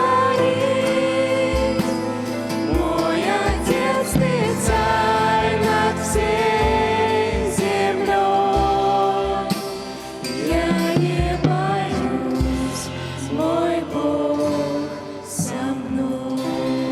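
Youth choir singing a Russian Christian hymn over instrumental accompaniment, with a steady low bass pulse that drops out about three-quarters of the way through.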